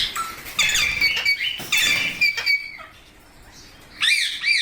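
Rose-ringed (ringneck) parakeets chirping and squeaking. There is a run of short, high calls over the first two and a half seconds, a brief lull, then one more call near the end.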